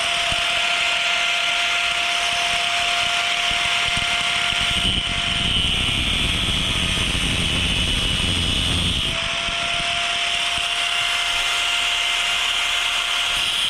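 Angle grinder running continuously against metal, its motor whine steady, with heavier grinding between about five and nine seconds in.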